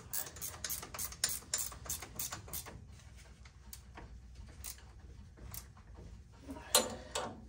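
Hand ratchet clicking at about four clicks a second as the driveshaft carrier bearing's mounting bolts are run in, the clicks thinning out about three seconds in. A louder knock near the end.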